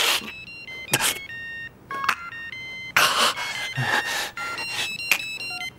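Mobile phone ringing with a beeping electronic ringtone: a quick melody of short tones that step up and down in pitch, repeating, with a few short rustling bursts among them.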